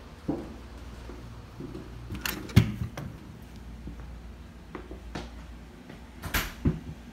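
Scattered knocks and clunks of a door being opened and shut, the loudest about two and a half seconds in, with two more near the end.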